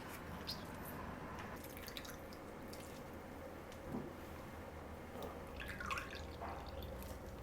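Faint drips of liquid and small scattered taps, with a brief louder sound about six seconds in.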